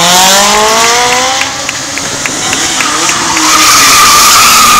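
A Ferrari V8 engine accelerating past, its note rising steadily in pitch through the first second and a half. From about three seconds in, a high tire squeal builds and is loudest near the end.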